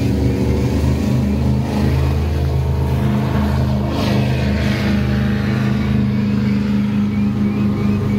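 Motorboat engine running steadily, with a rushing swell of water and engine noise about halfway through.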